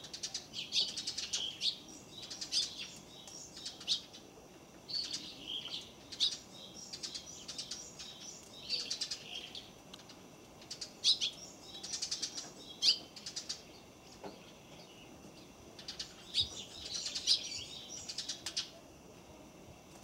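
A great tit hammering open a seed held under its feet: bursts of quick sharp beak taps every second or two, with high bird chirps around them.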